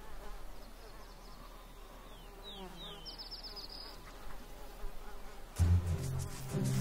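Biting flies buzzing as a steady insect drone, with a few short high chirps about two to three seconds in. A louder, lower steady buzz comes in about five and a half seconds in.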